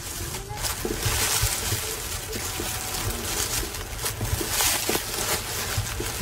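Thick grass rustling and crackling close up as hands grab, pull and cut bunches of it, a dense hiss with many small snaps.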